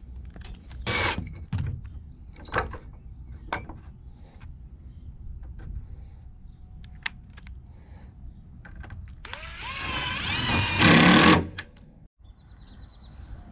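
A few knocks and taps of wood and tools being handled, then about nine seconds in a power drill runs for about two seconds, its whine rising in pitch as it drives a screw into the framing.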